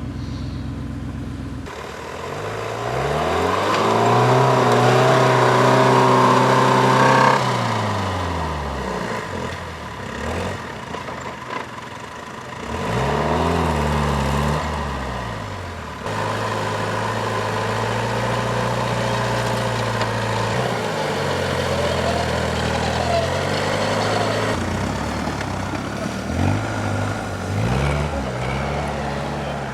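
Off-road 4x4 vehicle's engine revving up and down repeatedly, held high for a few seconds near the start and rising again briefly midway, then running at steadier revs with smaller swings.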